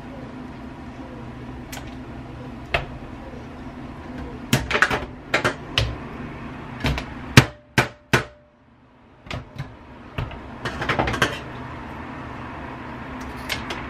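Kitchen scissors snipping the claws off raw chicken feet, with a plastic colander knocking against a stainless-steel sink: an irregular run of sharp clicks and knocks, loudest in the middle, over a steady low hum.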